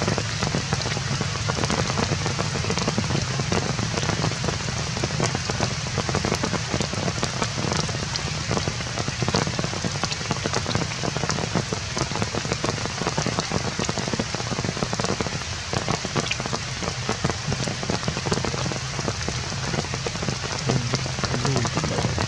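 Steady rain falling, with many dense drops striking surfaces.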